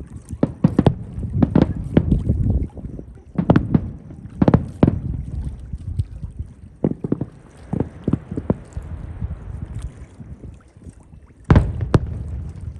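Aerial fireworks going off: a rapid, irregular series of booms and sharp cracks over a low rumble, thinning out after about five seconds, with one loud bang near the end.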